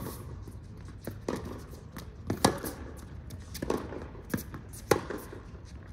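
Tennis rally on a hard court: a string of sharp racket strikes on the ball and ball bounces, the loudest hits about two and a half and five seconds in.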